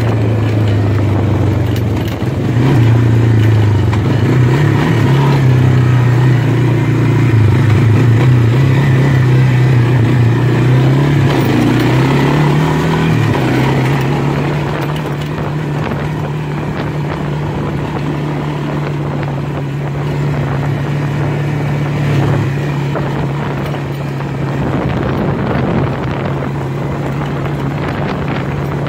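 Honda Fourtrax 300 ATV's air-cooled single-cylinder four-stroke engine running while riding. For the first dozen seconds or so its pitch rises and falls with the throttle. It then settles into a steadier, slightly quieter cruise.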